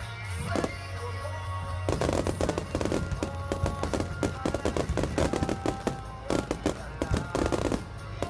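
Fireworks display: a dense barrage of bangs and crackling starting about two seconds in, over music playing throughout.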